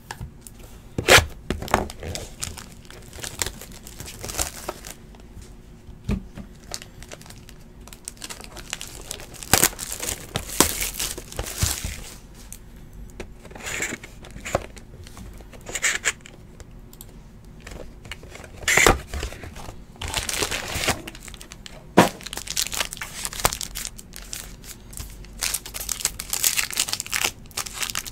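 Trading-card box and packs being opened by hand: intermittent ripping and crinkling of the wrappers, with a few sharp clicks.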